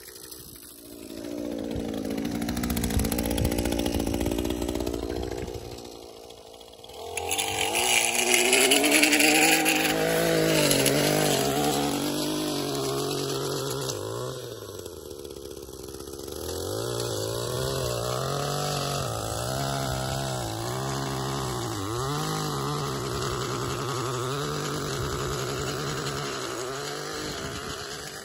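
Gas-powered stick edger's small engine running and revving up and down as its blade cuts along a sidewalk edge. The engine drops back briefly about six seconds in and again about halfway through, with a harsher hiss for a few seconds after the first dip, then fades near the end as the edger moves away.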